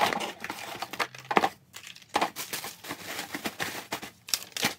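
Cardboard box and packing material being handled, rustling and crinkling in irregular bursts with short pauses.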